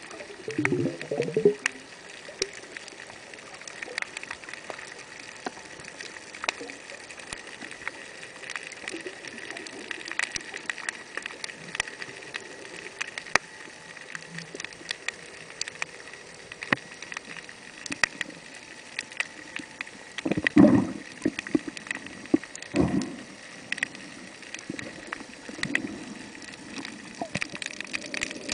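Underwater sound picked up through a compact camera's waterproof case: a steady scatter of sharp clicks and crackles, with two short, louder low gurgling bursts about twenty and twenty-three seconds in.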